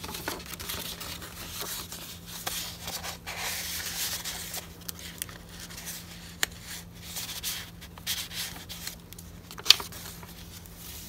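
Paper rustling and sliding as journal pages and a folded paper insert are handled, unfolded and turned, with small scattered taps. One sharp click about ten seconds in is the loudest sound.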